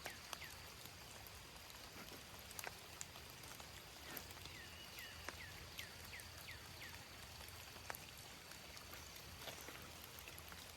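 Faint trickling and dripping water with scattered small splashes as fish are picked out of shallow run-off by hand. Runs of short, down-sliding chirps come and go in the background, one from about halfway in.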